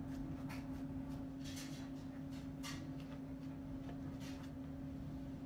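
Faint steady low hum, with a few soft, brief brushing or tapping sounds scattered through it.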